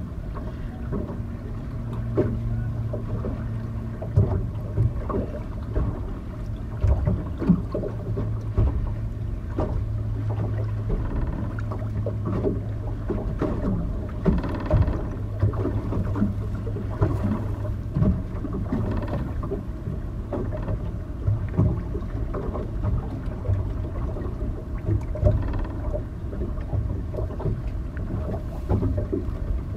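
A small motorboat idling on the water, its engine a steady low hum, with irregular knocks and slaps of water against the hull. The hum is strongest for roughly the first two-thirds and then weakens.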